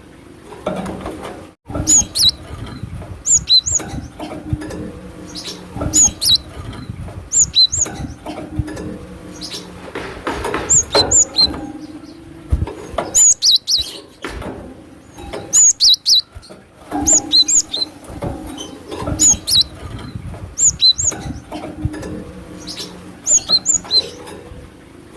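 Cinereous tit (glatik batu) singing: short, high, sharply rising notes in groups of two or three, repeated about every second and a half over low background noise.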